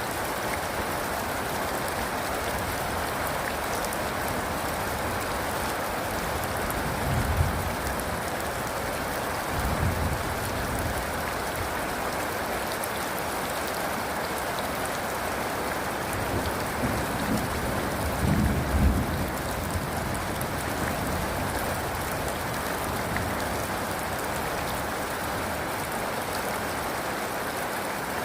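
Steady rain falling, with low rolls of thunder: brief ones about seven and ten seconds in, and a longer roll around the middle.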